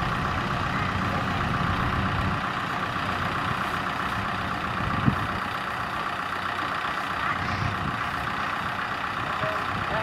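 Diesel farm-machine engine running steadily, with one short knock about five seconds in.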